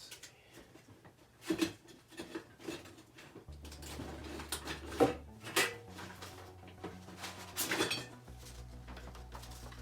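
Scattered clacks and knocks of hard objects being picked up and set down on a workbench, with a low steady hum that comes in about three and a half seconds in and changes pitch a couple of times.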